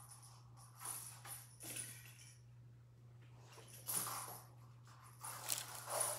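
Kittens playing among toys and a cat exercise wheel on a hard floor: several short bursts of scuffling and light rattling and jingling, with a quieter spell in the middle.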